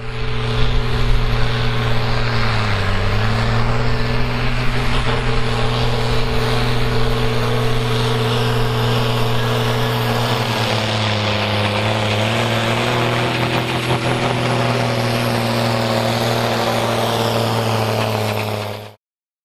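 Fiat 1580 tractor's six-cylinder diesel engine running at full power under heavy load as it drags a pulling sledge, a steady drone. Its pitch sags briefly twice, about three seconds in and again near twelve seconds, then the sound cuts off suddenly near the end.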